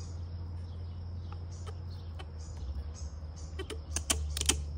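A few sharp clicks and knocks, bunched together about three and a half to four and a half seconds in, over a steady low hum.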